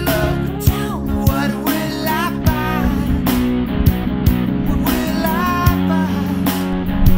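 Rock music soundtrack: electric guitar and a steady drum beat under a singing voice.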